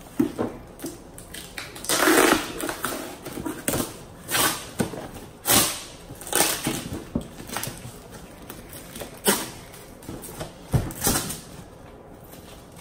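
Rustling and crinkling of a cardboard box and the plastic wrapping inside as it is opened and unpacked by hand, in short irregular bursts.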